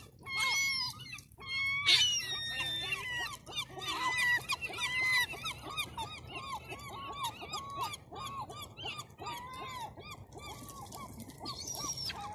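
Herring gulls calling. A run of short, pitched calls, each bending down at the end, follows several times a second, with a louder cry about two seconds in.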